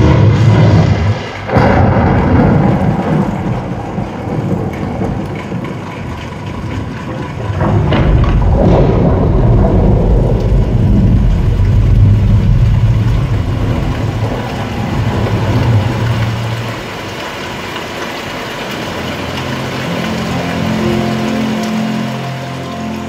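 Loud, deep rumbling cinematic sound design with a rain-like hiss and sudden thunder-like cracks about one and a half and eight seconds in. Low musical notes begin near the end, as a Dolby Atmos demo trailer starts.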